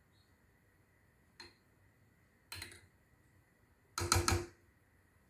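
Kitchenware being handled: a light click about a second and a half in, a knock near the middle, then a quick cluster of three or four clatters with a short ring near the end.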